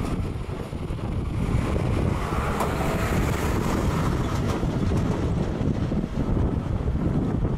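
Boeing 777 GE90 jet engines at high power on the runway, a steady rumbling roar swelling slightly in the middle. Heavy wind buffets the microphone.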